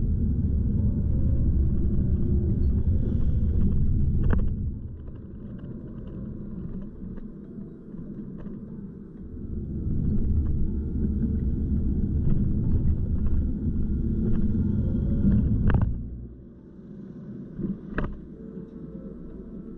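Car cabin rumble of engine and tyre noise picked up by a dashcam while driving at city speed. It eases off about four seconds in, builds again midway, drops near the end, and a few sharp knocks stand out.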